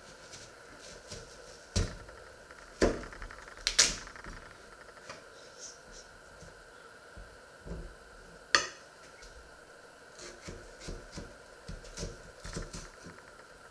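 Scattered light clicks and knocks, with a few louder knocks in the first nine seconds, over a faint steady hum.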